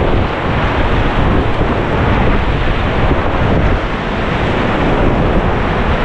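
Rushing white-water river noise around an inflatable raft, heavily mixed with wind buffeting the microphone.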